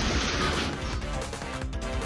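Background music, with a short burst of noise over it for the first half-second or so.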